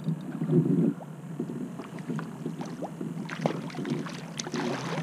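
A large barracuda thrashing and splashing at the surface beside a kayak, mostly in the last two seconds. A muffled low burst of noise, the loudest sound, comes in the first second.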